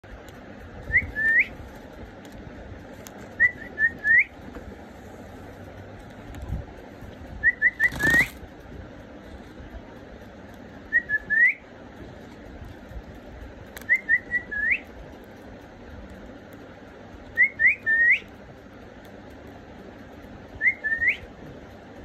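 Young budgerigar chirping: groups of two to four short, clear, high chirps, each group ending in an upward-hooking chirp, repeated about every three seconds. A single brief burst of noise comes about eight seconds in.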